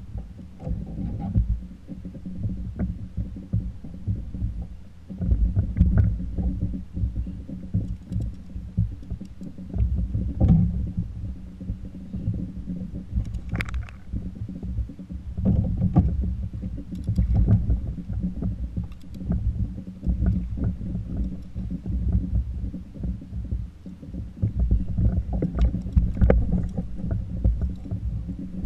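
Water lapping against a plastic kayak hull, an uneven low rumble, with scattered knocks and clicks from the rod, reel and landing net being handled as a fish is reeled in and netted.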